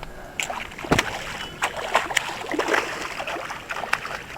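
A hooked redfish thrashing at the surface beside the boat, making a run of irregular sharp splashes over lapping water.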